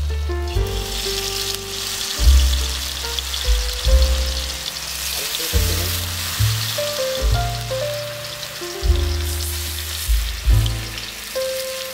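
Tomatoes and vegetables frying in oil in a wok with a steady sizzle. Background music with a deep, shifting bass line plays over it.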